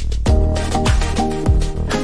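Upbeat background music with a steady, quick beat and bass line.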